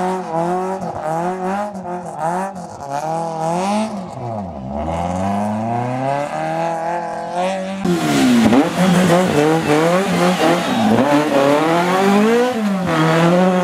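Rally car engines revving hard. First a Peugeot 106 pulls away through a bend, its pitch climbing and dropping again and again with gear changes and lifts off the throttle. About eight seconds in a louder Renault Clio rally car passes close, its revs rising and falling.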